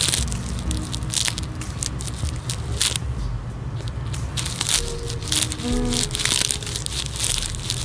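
Music playing during an earbud sound test: a song with a heavy, continuous bass line, short pitched notes and sharp percussion hits.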